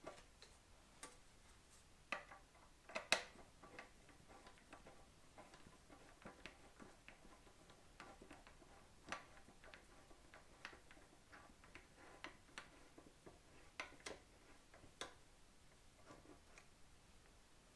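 Faint, irregular clicks and taps of hand tools and bolts as the fuel tank and tank-lift brackets of a motorcycle are bolted up loosely for a mock-up, with one louder knock about three seconds in.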